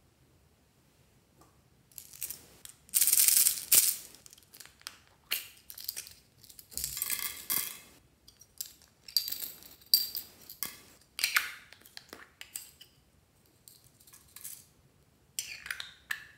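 Small hollow plastic toys being handled and knocked together: irregular clatters, taps and rustles that start about two seconds in.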